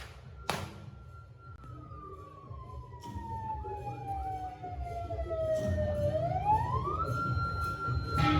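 A siren wailing: one tone that falls slowly over several seconds, sweeps quickly back up, holds, then starts to fall again, over a low rumble. A loud burst of noise starts near the end.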